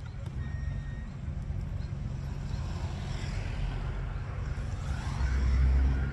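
Road traffic noise with a low, gusty rumble of wind on the microphone, which grows louder about five seconds in.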